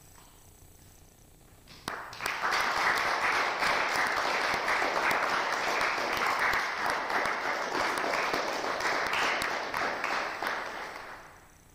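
Audience applauding. It starts about two seconds in, holds steady, and dies away near the end.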